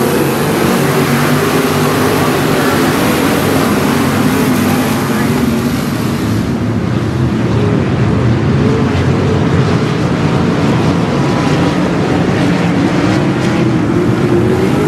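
A field of 305 sprint cars' V8 engines racing around a dirt oval: a loud, continuous engine note that wavers in pitch as the cars lap. It is stronger near the start and again near the end, as cars pass close by.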